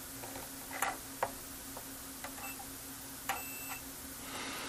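Multimeter test probes tapping on the solder joints of a circuit board: a few faint, scattered clicks at irregular intervals over a low steady hum.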